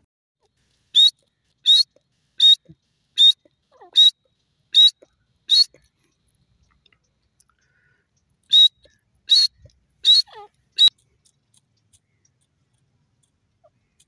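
Grey francolin calling: a run of seven short, sharp, high notes evenly spaced under a second apart, then after a pause of about three seconds, four more.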